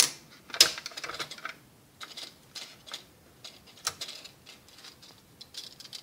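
Irregular plastic clicks and knocks as the letter ring is worked loose and taken off the print head of a Robotron S6125 electronic typewriter by hand. The two loudest clicks come right at the start and about half a second in, followed by scattered smaller clicks.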